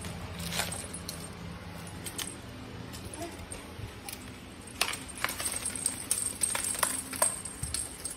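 Light clicks and crinkles of foil and cardboard disturbed by a cat squeezing behind a basket. A few come early, and a quick cluster comes in the second half.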